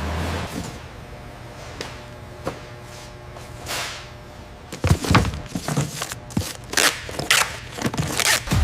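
Sharp knocks, thuds and swishing sounds, a few scattered at first, then coming thick and fast from about halfway through.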